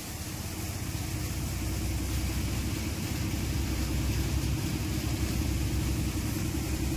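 Tractor-driven Jangir tokri-model thresher running while threshing chickpeas, powered by a 39 hp Eicher 368 tractor: a steady low mechanical rumble that grows a little louder over the first few seconds.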